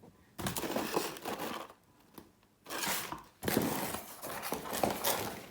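Firework packaging crinkling and rustling as it is handled, in three bursts with short quiet gaps between.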